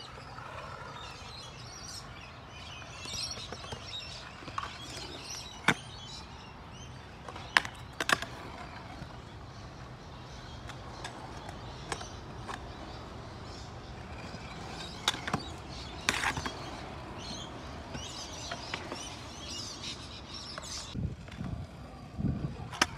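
Stunt scooter wheels rolling over a concrete skatepark with a steady low rumble, broken by several sharp clacks of the scooter hitting the concrete on landings and tricks. Birds chirp in the background.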